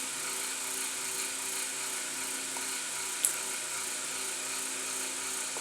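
Steady mechanical hum and hiss with a faint low pulsing, broken by one sharp click about three seconds in.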